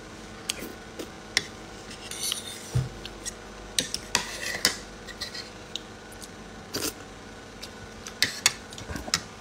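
Cutlery clinking and scraping against a plate, in scattered short taps and scrapes.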